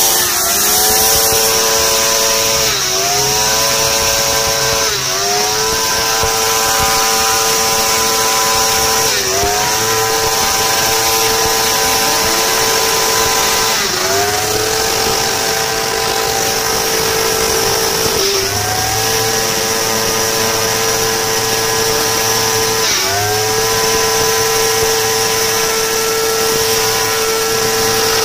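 Sport motorcycle engine held at very high revs during a stationary burnout, dipping briefly and climbing straight back about six times, with a steady high hiss above it.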